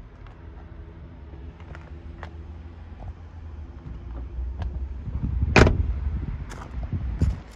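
VW T6 van's front door slammed shut a little past halfway through, one loud solid thud, with lighter knocks and handling noise around it over a low rumble.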